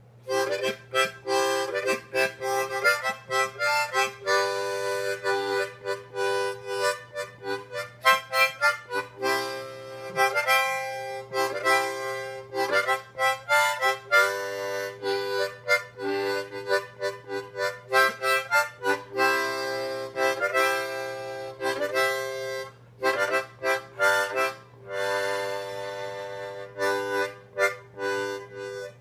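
Harmonica played in short rhythmic phrases of chords and single notes, with brief pauses between phrases.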